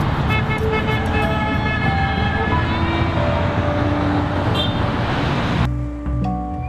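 Road traffic passing close by, a loud steady rush, with car horns honking; the traffic noise cuts off suddenly about six seconds in.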